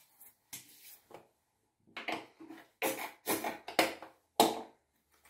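Aerosol shaving cream can sputtering in a string of irregular hissing spurts as the foam is dispensed: the can is running low on cream. A few faint handling noises come before it.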